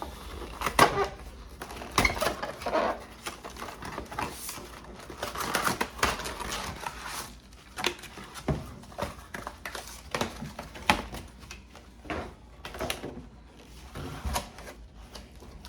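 A cardboard collector's box and its plastic packaging being opened and handled by hand: irregular clicks and taps mixed with short stretches of rustling.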